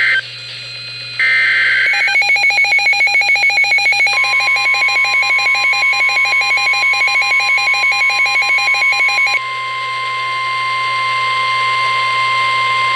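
NOAA Weather Radio emergency alert: a burst of screechy digital data tones in the first two seconds (the end of the SAME alert header). Then a rapid pulsing electronic alarm beep, joined about four seconds in by the steady high warning alarm tone. The beeping stops about nine seconds in and the long steady tone carries on alone.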